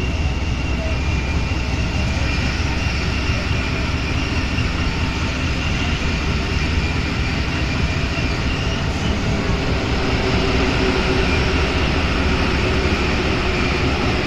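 NS-93 rubber-tyred metro train running between stations, heard from inside the car: a steady rumble with a faint high whine, growing a little louder about two-thirds in.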